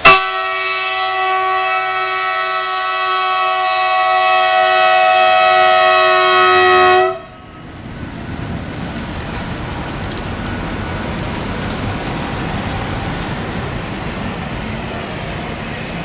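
MÁV class 431 (V43) electric locomotive's horn sounding one long, steady chord for about seven seconds, growing louder as it approaches, then cutting off sharply. It is a warning at a level crossing whose barrier signals are dark and out of order. After the horn stops, the steady rolling noise of the passing locomotive continues.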